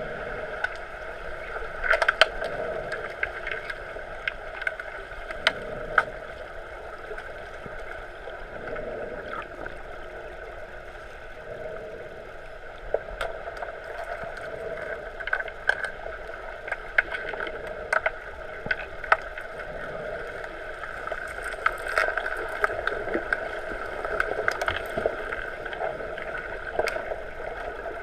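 Underwater pool ambience picked up by a submerged camera: a steady muffled hiss and rushing of water, with scattered sharp clicks and knocks throughout.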